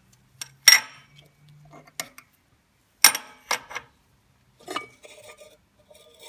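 Metal clinks and scrapes as a failed clutch release bearing, come apart into pieces, is slid off the input shaft of a BMW 7-speed SMG gearbox. About half a dozen sharp clinks, the loudest just under a second in and about three seconds in.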